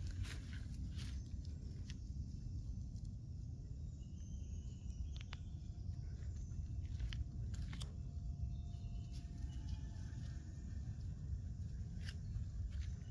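Light crunching footsteps and rustling in dry grass as a leashed dog and its walker move along, with scattered crackles over a steady low rumble.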